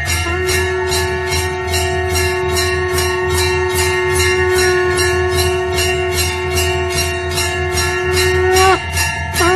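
Temple bells ringing in a fast, even rhythm of about three strokes a second, over a steady held ringing tone and a low hum. The held tone bends in pitch briefly near the end.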